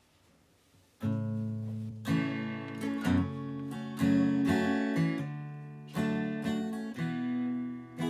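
Acoustic guitar strumming chords, starting about a second in, with a new chord roughly every second ringing on between strums.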